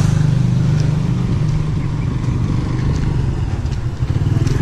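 Motorcycle engine running steadily close by, a low even hum.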